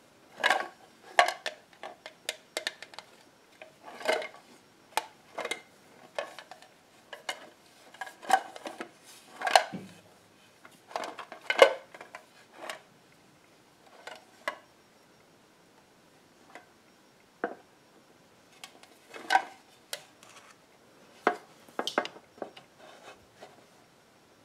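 Fingernails tapping and hands handling a small metal tin box, giving irregular sharp metallic clicks and knocks, with a few seconds of fewer, softer taps a little past the middle.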